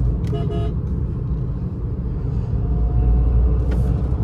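Steady low rumble of a Tata Punch under way, its engine and tyre noise heard from inside the cabin. A brief, short sound stands out about half a second in.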